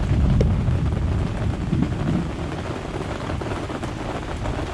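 Storm wind buffeting the microphone, with a steady hiss of rain. The rumbling gusts are strongest in the first second or so and ease slightly after that.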